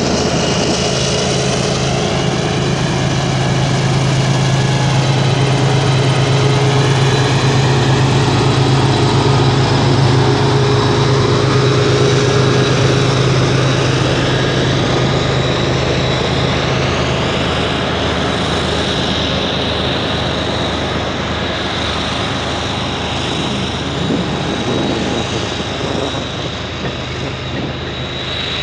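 CN freight train rolling past close by: the steady rumble and clatter of freight cars' steel wheels on the rails, with a low drone that eases off about halfway through.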